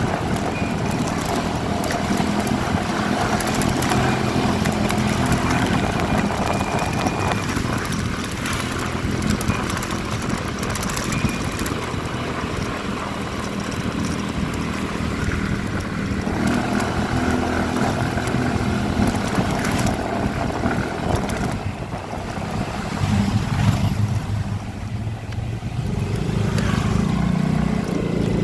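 Motorcycle engine running steadily while riding, under a constant rush of road and wind noise.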